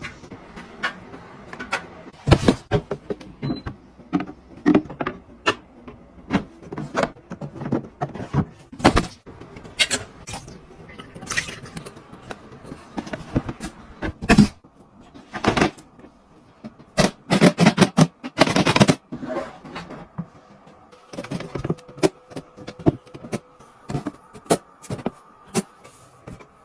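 A long run of irregular sharp clicks and knocks, like objects being handled and set down, with a steady faint hum joining in for the last several seconds.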